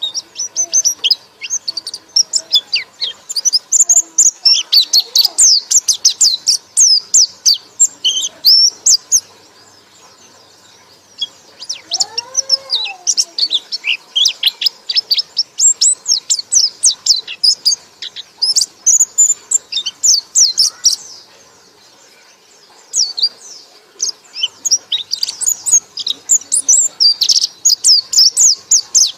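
Songbird chattering in long bouts of rapid, high, short notes, broken by two short pauses. One lower, arched call sounds about twelve seconds in.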